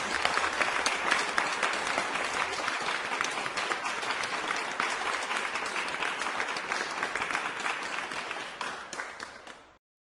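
Crowd applause: many hands clapping at once, slowly fading out and stopping just before the end.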